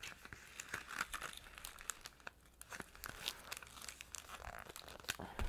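Paper cupcake liners being folded by hand: faint, irregular crinkling and rustling of the pleated paper.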